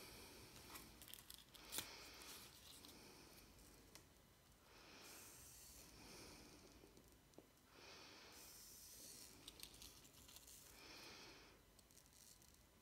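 Near silence with faint breathing close to the microphone, a few slow breaths about a second each, and small handling clicks, the sharpest about two seconds in.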